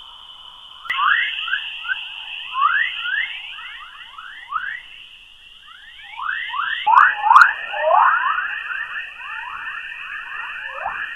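Spacecraft plasma-wave radio recording played as sound: a dense stream of short chirping whistles, several a second, over a steady high hiss. The hiss shifts slightly in pitch about seven seconds in.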